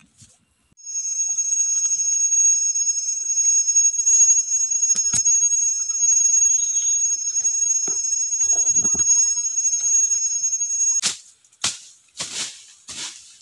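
A cicada's steady, high-pitched whine, starting about a second in and cutting off suddenly near the end. A few short rustles of dry leaf litter follow.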